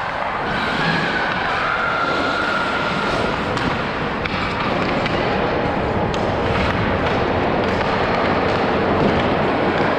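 Hockey skates scraping and carving on rink ice, a steady rushing noise, with a few sharp knocks of sticks and pucks.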